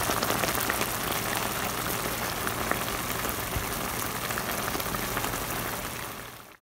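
A pot of mung bean stew bubbling at a simmer: a steady, even hiss of bursting bubbles that fades out near the end.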